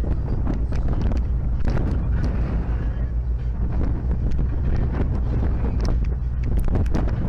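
Wind buffeting the microphone aboard a tour boat, with a steady low rumble underneath and brief gusty crackles throughout.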